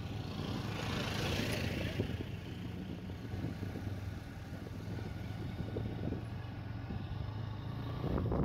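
Vehicle engine running at a steady speed with road and wind noise, heard from on board. A brief rush of hiss swells about a second in.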